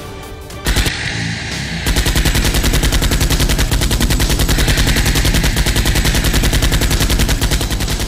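Rapid automatic gunfire sound effect, about ten shots a second, starting about two seconds in and carrying on steadily, over background music.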